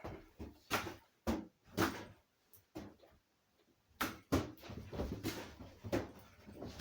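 A balloon being batted back and forth, giving repeated sharp taps and dull thumps at an uneven pace, with a lull of about two seconds in the middle.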